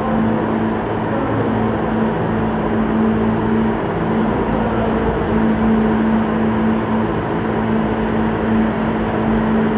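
New York City subway train running: a loud, steady rumble with a steady low hum and fainter higher tones over it.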